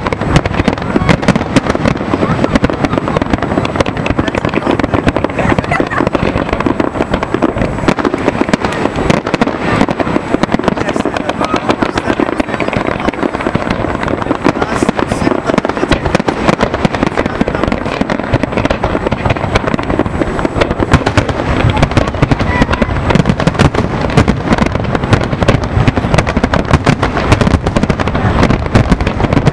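Large fireworks display going off without pause: many overlapping shell bursts and crackling.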